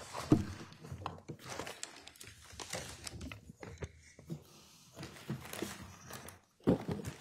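Rustling, crinkling and knocking as an evidence box and papers are moved about and set down at a courtroom witness stand. A sharp knock comes about a third of a second in, and another near the end.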